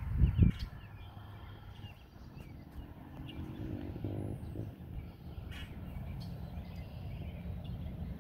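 Outdoor yard ambience: small birds chirping here and there over a steady low rumble, with two loud thumps at the start and a brief rising sound about four seconds in.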